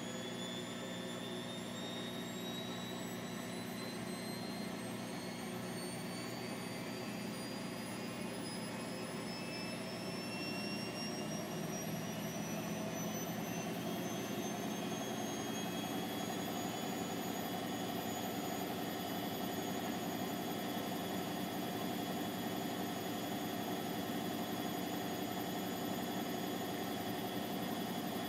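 Bosch WVT 1260 front-loading washing machine in its final spin, the drum and motor accelerating toward the 1200 rpm top speed. A whine rises steadily in pitch over the first half and then levels off at a constant pitch, growing slightly louder as it does.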